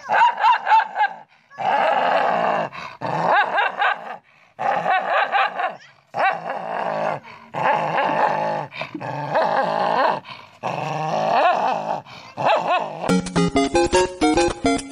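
A dog snarling and barking in repeated wavering bouts, aggressive at its own reflection in a mirror. Background music starts near the end.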